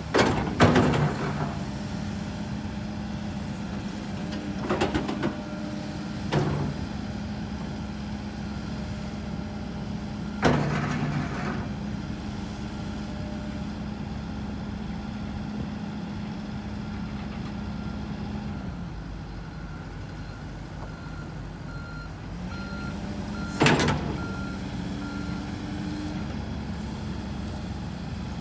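2015 Kobelco SK140SRLC-3 excavator's Mitsubishi diesel engine running under hydraulic load as the boom, arm and bucket move. The steady drone eases off for a few seconds past the middle and then picks up again. Several sharp, loud clunks come from the working machine, and a beeping alarm sounds near the end.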